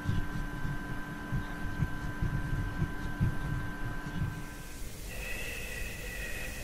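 Electronic soundtrack: low, uneven throbbing pulses under several steady held tones. About five seconds in, the pulses stop and the held tones change to a higher set.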